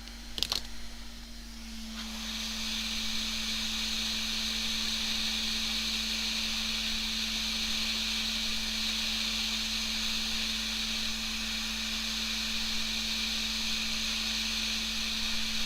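A click, then about two seconds in a hot air rework station starts blowing with a steady hiss that runs on, while a replacement component is soldered onto the laptop motherboard.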